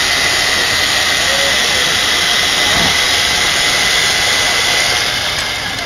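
Construction machinery running steadily, with a constant high whine over a loud rushing noise. It fades near the end.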